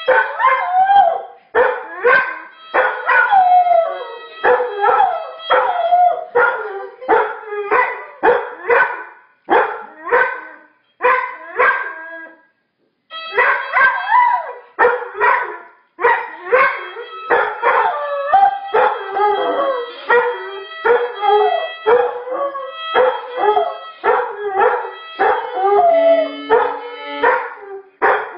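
A dog howling along to music, its drawn-out howls wavering up and down in pitch over sustained musical notes, with a short pause about halfway through.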